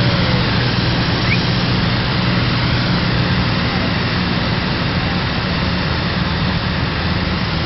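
Cessna light aircraft's piston engine and propeller droning steadily, heard from inside the cabin with rushing air noise over it.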